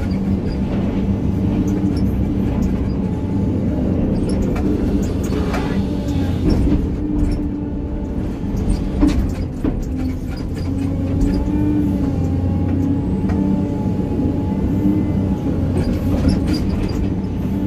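Sany excavator's diesel engine running steadily under load while its hydraulics work, heard from inside the cab, with a few knocks near the middle.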